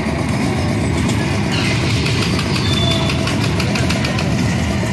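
Amusement-park kiddie train running past on its track, a steady low rumble with rapid rattling clatter from the wheels and cars.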